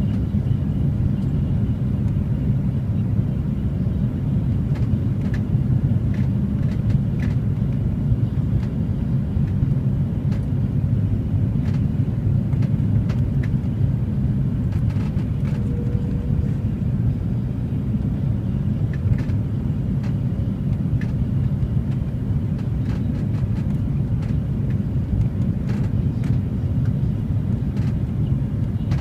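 Steady low rumble of engine and airflow noise inside the cabin of an Airbus A330-300 on final approach. A few faint ticks and rattles now and then.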